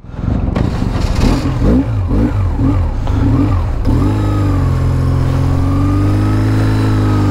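Motorcycle engine pulling away under acceleration, its pitch rising and falling in quick surges for the first few seconds, then settling into a steady cruise.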